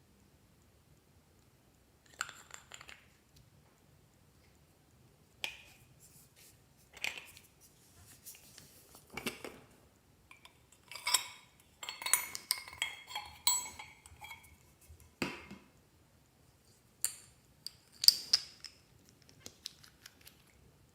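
Irregular taps, clicks and clinks of small hard objects being handled, several ringing briefly like glass or metal, with a busy cluster in the middle.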